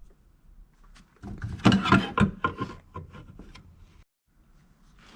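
Knocks, clunks and scraping as the rusted horn of a Ford Fiesta ST is worked loose and pulled out from under the front wing, busiest about two seconds in. The sound drops out completely for a moment near the end.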